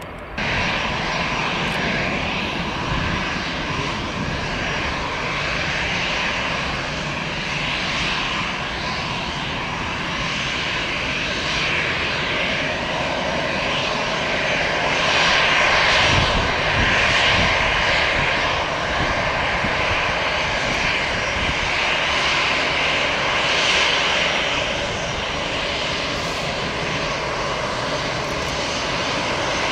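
Boeing 747-8's four GEnx-2B turbofan engines running at low taxi thrust: a steady jet rush with a high whine, growing louder about halfway through as the aircraft passes.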